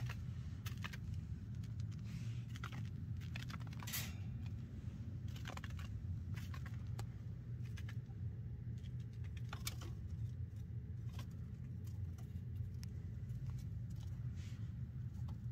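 Faint, irregular small clicks and taps from a chinchilla moving about on paper and plastic, its feet and claws on the floor and the plastic toy, over a steady low room hum.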